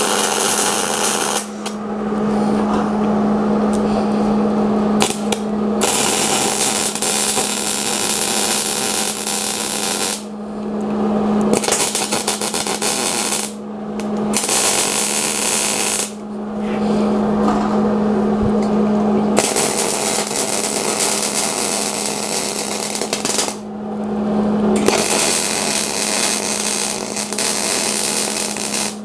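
Wire-feed (MIG) welder arc crackling as casters are welded onto a steel frame, in about eight runs of a few seconds each broken by short pauses, with a steady hum underneath.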